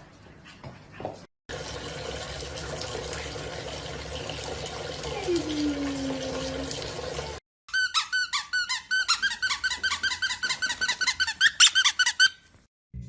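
Steady rushing noise like running water with a falling tone in it, then a fast run of high squeaks, about eight a second, for several seconds.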